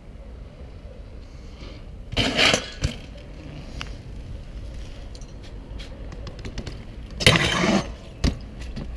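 BMX bike on a concrete ledge: two short, harsh metal-on-concrete scrapes about five seconds apart, each followed by sharp clacks as the bike strikes and comes off the ledge.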